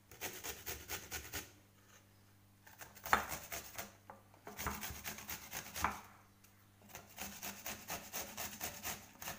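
Cucumber being grated on the fine side of a metal hand grater: quick rasping strokes, about four a second, in runs broken by short pauses.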